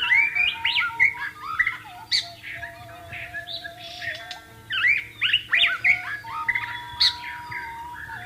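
White-rumped shama singing a fast, varied string of whistled phrases that come in loud bursts. Underneath, a suling bamboo flute holds long, steady low notes that step up and down.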